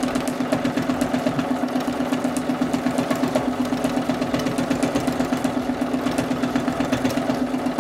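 Sewing machine stitching at a steady speed during free-motion quilting: a constant motor hum with a rapid, even pulse of needle strokes.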